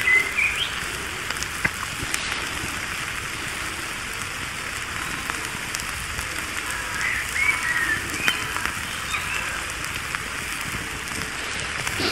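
Steak and vegetables sizzling on a hot slate over a wood campfire: a steady frying hiss, with scattered crackles from the burning wood.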